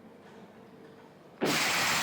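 A man breathing hard under heavy effort: a short quiet spell, then a loud, forceful breath out starting a little past halfway, as during the reps of a heavy bench press set.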